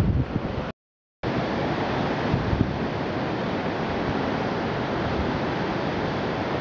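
Steady rushing noise of wind on the microphone, with uneven low buffeting. It breaks off to dead silence for about half a second, about a second in, then resumes.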